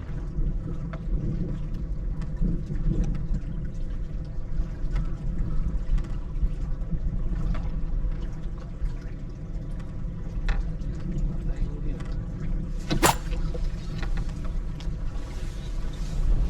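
Steady low rumble of wind and water lapping around a fishing raft at sea, with a few light knocks and one sharp click about 13 seconds in.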